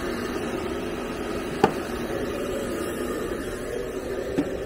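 Handheld hair dryer blowing steadily, with one short sharp click about a second and a half in.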